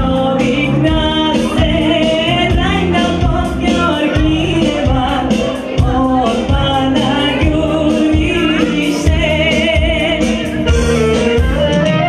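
A woman singing a Bulgarian folk song into a microphone over instrumental backing with a steady beat.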